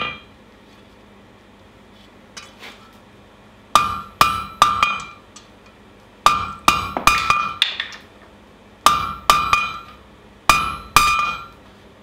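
Hand hammer striking red-hot flat steel bar on an anvil, in bursts of two to six blows with short pauses between. Each blow rings briefly with a clear metallic tone.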